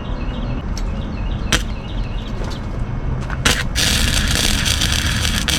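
A small welder's arc crackling and sizzling steadily as it welds an exhaust pipe, starting about four seconds in after two sharp clicks. A low rumble runs underneath.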